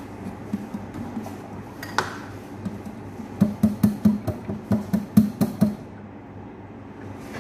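A metal spoon clinks once against a kitchen container, then knocks rapidly against its rim, about a dozen quick taps in two seconds from about halfway in.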